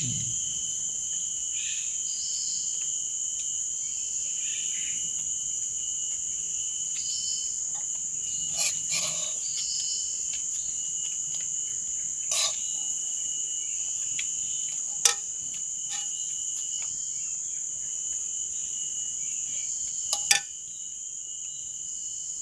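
Steady chorus of forest insects, several high, unbroken tones at once, with a few short sharp clicks and knocks scattered through it.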